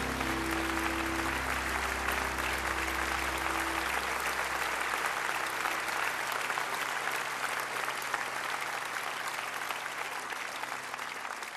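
Audience applauding as the song's final held chord dies away over the first four seconds or so; the applause thins out near the end.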